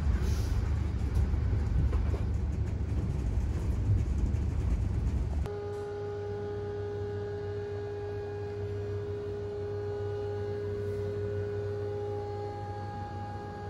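Passenger train coach in motion: a loud, steady low rumble of the running train. About five seconds in, it cuts to a quieter steady hum carrying a few fixed tones.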